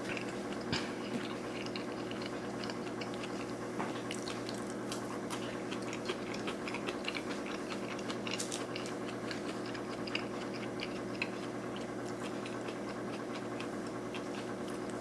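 Close-miked chewing of a sushi roll: many small, irregular wet mouth clicks, over a steady low hum.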